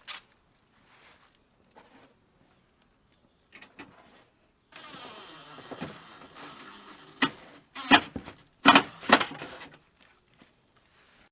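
Knocks and clatter of a crew setting cabinet frames in place, with a handful of loud, sharp knocks close together near the end. A steady high-pitched tone runs underneath.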